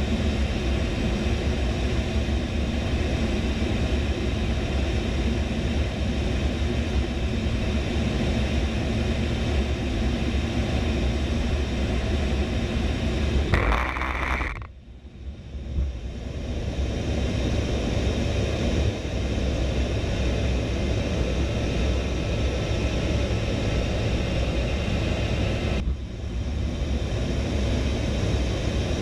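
A-10 Thunderbolt II's twin TF34 turbofan engines and rushing air, heard inside the cockpit in low-level flight: a steady rumble with faint steady whining tones. About halfway through, a brief louder burst lasts about a second and is followed by a short drop in level.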